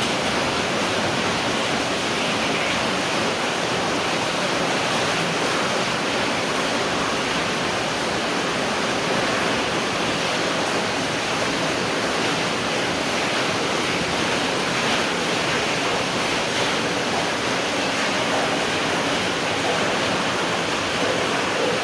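Steady, heavy rain falling, an even hiss with no breaks.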